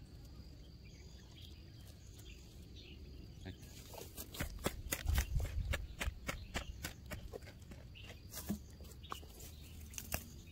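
A wooden stick jabbing and scraping into loose soil while digging out a cricket burrow: a quick run of scrapes and knocks starting a few seconds in, then only a few single knocks near the end.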